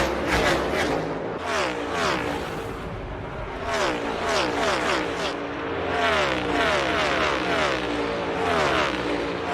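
NASCAR Next Gen race cars' V8 engines at speed. Quick passes near the start, then engine notes that fall in pitch in steps several times, as the cars lift off and downshift.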